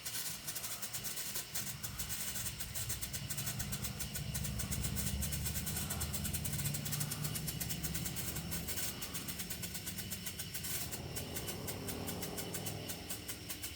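Firework strobe fountain burning: a rapid, irregular stream of small crackling pops, over a steady low hum.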